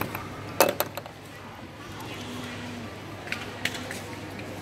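Sharp metal taps and clicks of a jeweller's stone-setting tools on a gold piece set with rubies: two loud taps just under a second in, then a couple of lighter clicks about three and a half seconds in.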